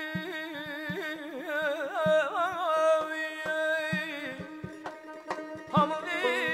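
A male mugham singer's voice in full-throated melismatic song, with rapid wavering trills that fade out just past halfway and return near the end. Beneath it, a steady held instrumental drone and soft low strokes about twice a second.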